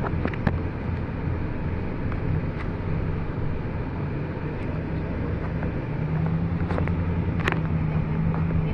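Car being driven, heard from inside the cabin: a steady low engine and road hum that rises slightly about six seconds in, with a few short clicks.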